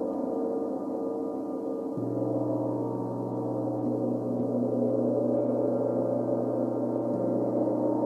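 Rimless flat gongs sounding together in a sustained howling drone of many overlapping steady tones, with no distinct strikes. A deep low tone enters about two seconds in and drops out near the end.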